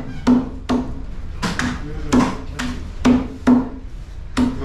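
Heavy cleaver chopping through stingray meat into a wooden chopping block: a steady run of hard chops, about two a second, each with a dull wooden knock.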